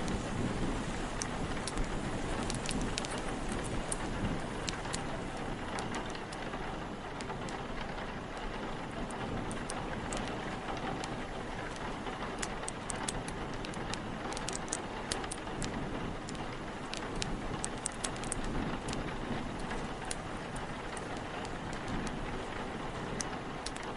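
Steady rain with a low wind rumble, and a wood fire crackling: many small sharp pops scattered throughout, most of them in the middle.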